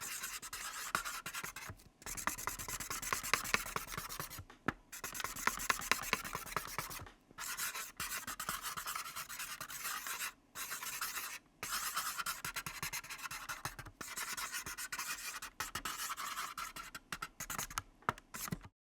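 Pencil writing: continuous scratchy strokes in runs of a few seconds, broken by short pauses, stopping just before the end.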